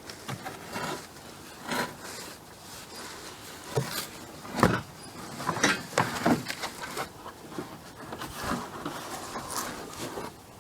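Irregular knocks, clicks and rustling of swing set parts and packaging being handled as they are taken out of the box, with the loudest knock about halfway through.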